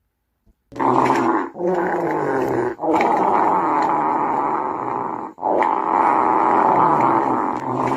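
Farting sound effect: a string of long, raspy, low-pitched farts starting just under a second in, with short breaks about a second and a half, three seconds and five seconds in.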